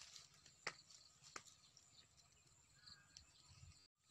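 Near silence: faint outdoor background with a few soft clicks, and a brief total dropout near the end.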